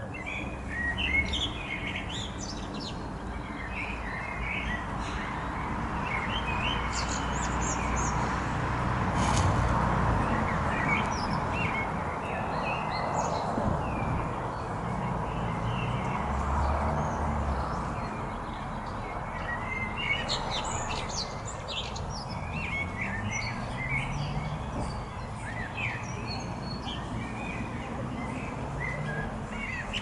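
Small songbirds chirping and twittering in short high calls, over a steady rushing noise that swells and fades again through the middle.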